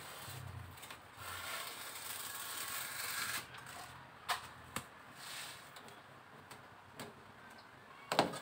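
Rustling and handling noise from a foil-faced adhesive foam heat-insulation pad being fitted to the underside of a car bonnet, with a few sharp clicks and taps and a louder cluster of them near the end as the pad is pressed into place.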